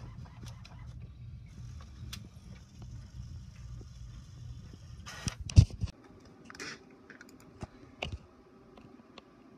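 Clicks and knocks from handling an HP inkjet all-in-one printer and pressing its buttons, over a steady low rumble that cuts off about six seconds in. The loudest knock comes just before the rumble stops.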